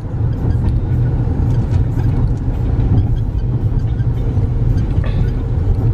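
Car driving along a street, heard from inside the cabin: a steady low rumble of engine and road noise.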